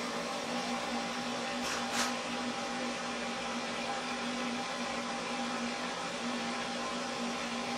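Pet grooming stand dryer blowing steadily, a rushing airflow over a constant motor hum, fluff-drying a freshly bathed dog's coat. Two brief sharp sounds about two seconds in.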